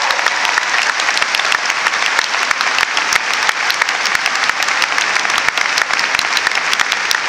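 A large crowd applauding, a steady dense clatter of many hands clapping.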